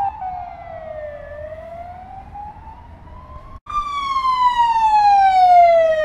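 Budapest police car siren wailing in slow sweeps. It falls, rises over a couple of seconds, cuts off abruptly about three and a half seconds in, then comes back louder and falls again.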